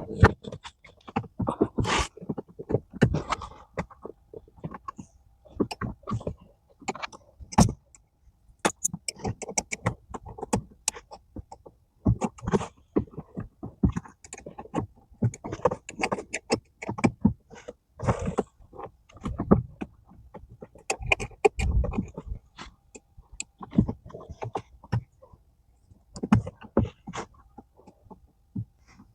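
A tight-fitting pedal cover being forced by hand onto a Fisker Ocean's brake pedal: an irregular string of scrapes, clicks and knocks as it is pushed, levered and worked over the pedal's edge.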